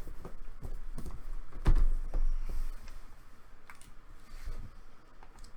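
Irregular light clicks and taps of things being handled on a table, with one louder knock nearly two seconds in, then fainter ticks.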